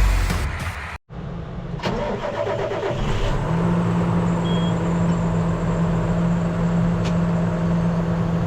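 A vehicle engine starting, then running steadily at idle with a low, even hum.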